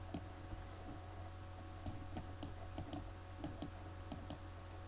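Computer mouse clicking about ten times at an uneven pace, over a low steady electrical hum.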